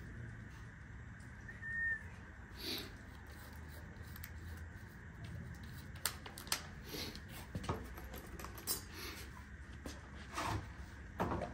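A few light clicks and knocks from a cordless drill and wood being handled over a low background hum, with a brief high chirp about two seconds in; the drill motor is not run.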